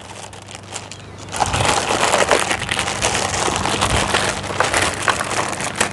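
Plastic packaging crinkling and crackling as it is handled and pulled open. It grows louder and denser about a second and a half in.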